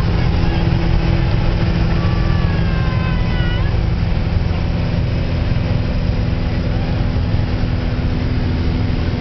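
Cessna 175's engine and propeller droning steadily, heard inside the cabin in flight. A thin, wavering tone slides in pitch over it during the first few seconds.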